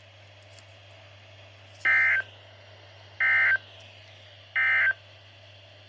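Three short bursts of EAS SAME digital data tones, each a buzzing burst about a third of a second long, a little over a second apart: the end-of-message code that closes an emergency alert broadcast.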